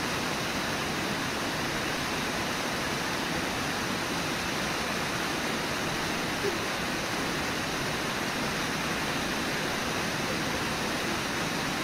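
Steady rush of river whitewater pouring over a waterfall.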